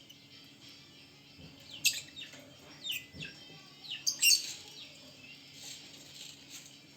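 Lovebirds calling: a string of short, shrill, downward-sliding chirps, most of them between about two and four and a half seconds in, with fainter twittering around them.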